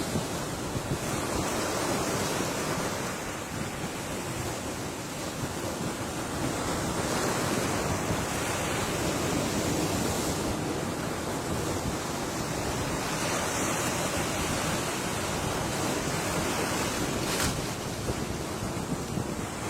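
Ocean surf: waves breaking and washing in as a continuous rush that swells and eases, with wind rumbling on the microphone. A single brief click sounds near the end.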